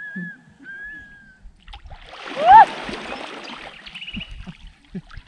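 Splashing as a swimmer plunges and strokes through cold lake water, loudest about two and a half seconds in, with a short yelp at the biggest splash.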